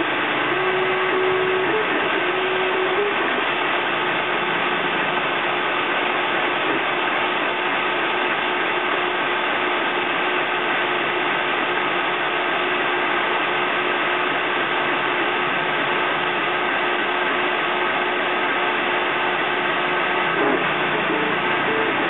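FDM 3D printer running a print: its stepper motors whine in short tones that jump between pitches as the print head moves, most plainly in the first few seconds and again near the end, over a steady fan hiss.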